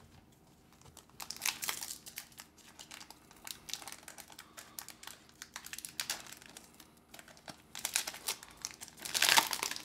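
Pokémon card booster pack wrapper crinkling as it is handled and torn open. The crackling starts about a second in and is loudest near the end.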